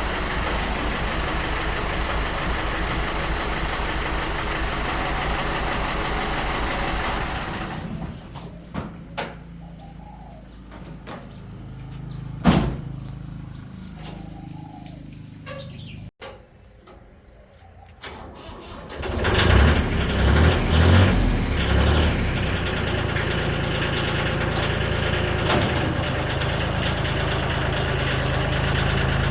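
An engine runs steadily, then cuts out, leaving a quiet stretch with scattered clicks and one sharp knock. About nineteen seconds in, an engine starts and settles into a steady idle.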